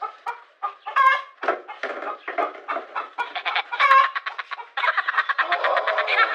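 Chicken clucking in a rapid run of short calls, busiest in the second half.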